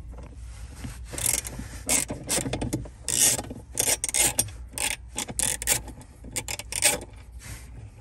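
Socket ratchet clicking in short, repeated runs of strokes as it loosens a 10 mm bolt holding a metal plate.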